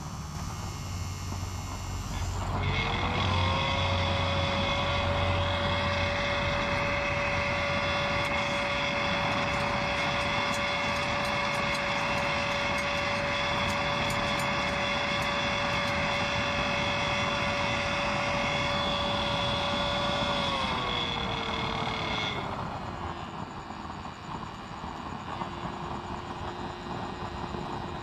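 The blower fan of a used-oil burner stove spins up about two seconds in and runs at a steady whine over the rush of the forced-air flame. It winds down with a falling pitch near the twenty-second mark, and the stove is left burning more quietly.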